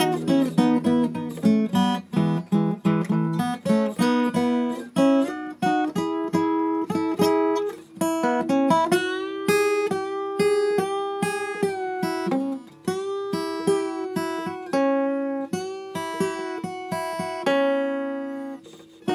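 Acoustic guitar playing a picked single-note melody, a quick run of plucked notes, with a few notes bent up and back down in pitch partway through.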